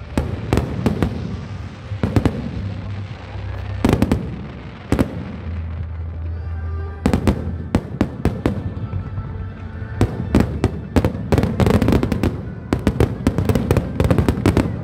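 Fireworks display: sharp bangs and crackling bursts going off one after another, thickening into a rapid flurry near the end, with music playing underneath.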